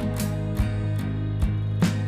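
Background music with a steady beat, about two to three beats a second.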